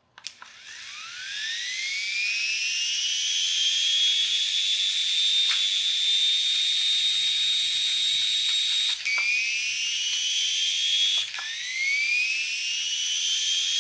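Air Hogs Moto Frenzy RC motorbike's small electric drive whining at full throttle, climbing in pitch for a few seconds and then holding steady. Twice it dips briefly, at about nine and eleven seconds, and winds back up. The drive sounds far too fast.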